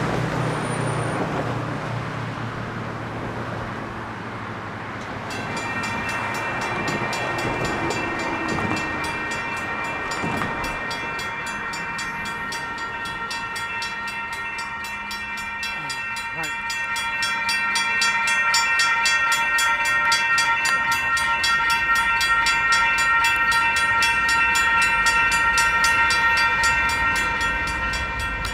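Railroad crossing warning bells, mostly electronic bells, start ringing about five seconds in and keep up a fast, even ringing that grows louder partway through. Before they start there is a steady noise of road traffic, and a low rumble builds near the end.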